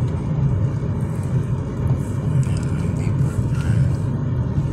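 Steady low rumble of a car driving, heard from inside the cabin, with tyre noise from the wet road.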